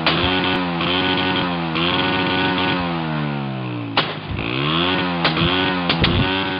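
Honda motorcycle engine revved up and down over and over, about once a second, with sharp gunshot-like backfire bangs from the exhaust silencer: one at the start, one about four seconds in, and three more close together near the end. The bangs are the 'silencer firing' trick, which the report puts down to a new spark plug left slightly loose.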